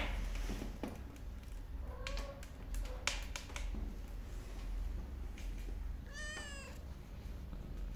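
Domestic cat meowing: a short meow about two seconds in, a brief one just after three seconds, and a longer meow that rises and falls around six seconds in. A few sharp clicks fall between the meows, over a low steady hum.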